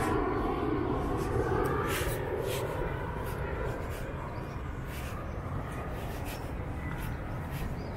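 Walking footsteps crunching on a gritty park path, roughly two steps a second, over a low distant rumble that fades away during the first three seconds.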